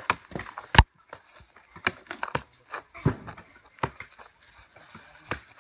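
Cork harvesters' hatchets chopping into and prying at the thick bark of a cork oak trunk to strip it: a string of about ten irregular sharp wooden knocks, the loudest about a second in.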